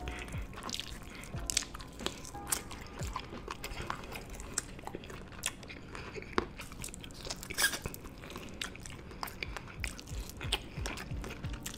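Close-up eating sounds of a man biting and chewing roasted chicken, tearing meat off the bone: a steady run of wet mouth clicks, smacks and small crunches.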